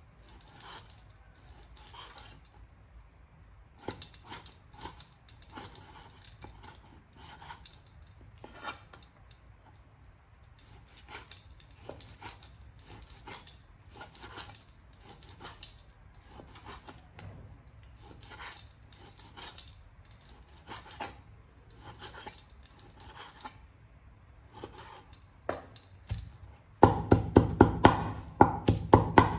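Cleaver cutting raw pork on a wooden cutting board: repeated, irregularly spaced knocks of the blade through the meat into the wood. About two and a half seconds before the end it turns into quick, much louder chopping as the pork is minced.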